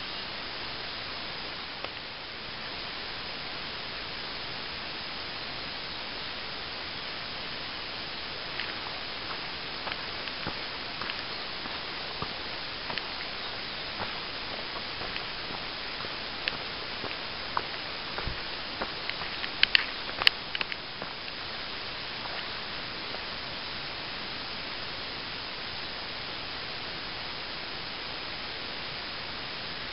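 Steady hiss, with scattered light crunches and clicks of footsteps on a dirt trail through the middle and a few louder clicks about twenty seconds in.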